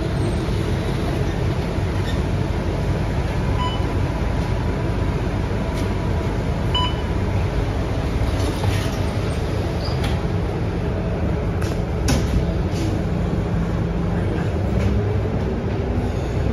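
Inside a Scania K230UB single-deck bus: its diesel engine and drivetrain running with a steady low rumble as the bus moves. Two short beeps sound about 4 and 7 seconds in, and a few sharp clicks or rattles come near the middle.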